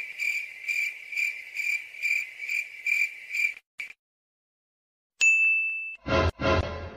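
Cricket-like chirping at about two and a half chirps a second for some three and a half seconds, then, after a short gap, a single bright ding that rings briefly. Near the end come two short, loud sound-effect hits.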